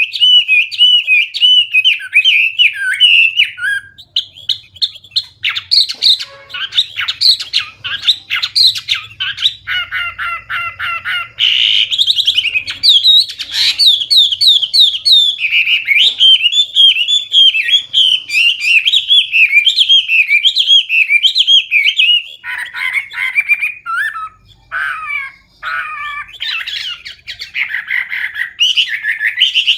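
Chinese hwamei singing loud, clear, nearly continuous song of varied whistled phrases, full of mimicked song, including a fast run of repeated notes, with a brief break about four seconds in and choppier short phrases near the end.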